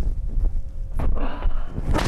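Massage handling on a body: a run of dull low thumps with rustling, and two sharp slap-like hits, about a second in and near the end.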